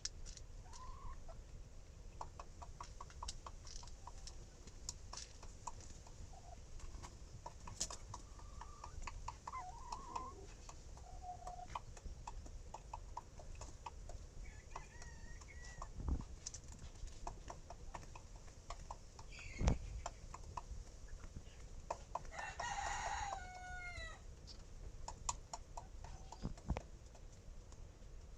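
Chamois Poland cockerel with hiccups from eating too fast: many short clicky hiccups and small clucking chirps, then one short crow late on whose pitch falls at the end. Two dull thumps come just past the middle.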